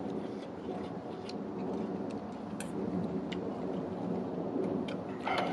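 Utensils clicking and clinking against dishes during a meal: a handful of sharp, separate clinks, the loudest near the end, over a steady low rumble.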